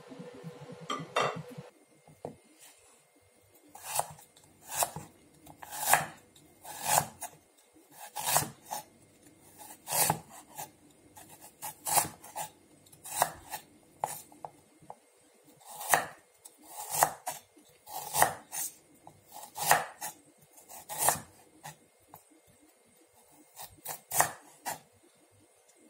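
Serrated kitchen knife slicing fresh ginger root thinly on a wooden cutting board, about one cut a second, each stroke sawing through the root and knocking on the board, with a short pause near the end.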